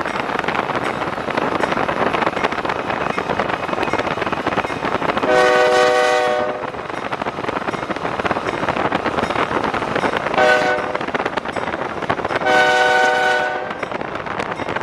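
Diesel locomotive air horn sounding a chord: a long blast, a short one and another long one, over a steady rushing noise of the moving train.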